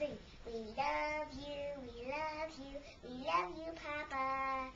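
A young girl singing in a high voice, several short phrases with long held notes.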